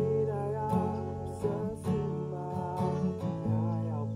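Acoustic guitar strummed in steady chords, accompanying a man singing a slow melody.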